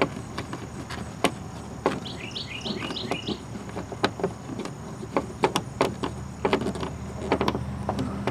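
Irregular clicks and taps of screws being tightened down on a car's plastic cabin-air-filter cover. A bird chirps a short run of notes about two seconds in, over a steady low hum.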